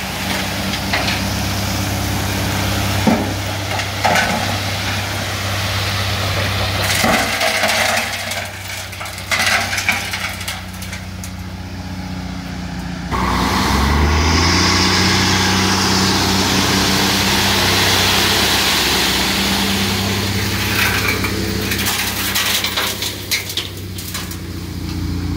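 A truck's engine running steadily, with irregular knocks and rattles; about halfway through the engine note rises and the sound gets louder and noisier.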